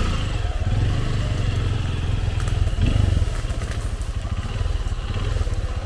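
Trail motorcycle engine running at low revs, with a short rev about three seconds in.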